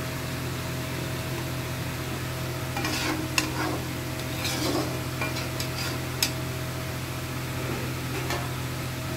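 A metal spatula stirring thick chickpea curry in a kadai, scraping and clicking against the pan from about three seconds in, with two sharp clicks, over a steady low hum.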